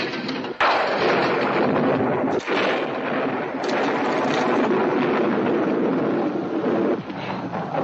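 Storm sound effects: heavy rain with a sudden crash of thunder about half a second in, and a loud splash into water about halfway through.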